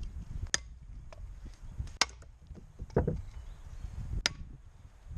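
Sharpened Cold Steel Special Forces shovel chopping into dry, seasoned wood: four sharp strikes, roughly a second apart.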